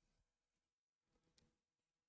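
Near silence, with one faint tick about one and a half seconds in.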